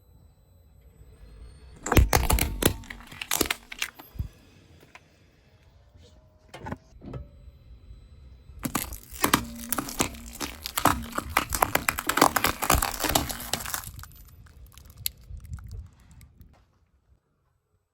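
Brittle objects cracking and crunching under a car's tyre: a few loud sharp cracks about two seconds in, then a dense run of crackling and snapping from about nine to fourteen seconds.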